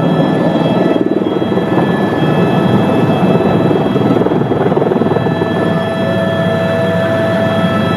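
Helicopter in flight, heard from aboard: loud, steady rotor and engine noise with a steady high turbine whine over it.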